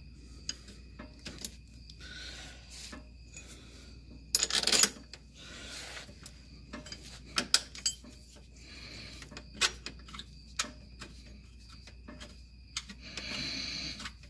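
Metal clinks, taps and rubbing as a billet aluminum rear motor mount and its bolts and spacer are worked into place by hand, with the loudest clatter about four and a half seconds in and a stretch of rubbing near the end.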